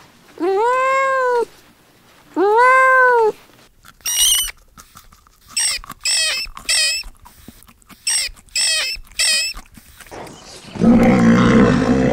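A kitten meows twice, two long drawn-out meows that rise and fall in pitch. A run of short, very high-pitched squeaky calls follows. Near the end comes a loud, rough animal sound.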